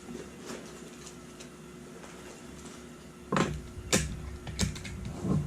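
Small plastic speed-cube stands being set down one after another: four light clacks in the last two seconds or so, after a few seconds of faint room hum.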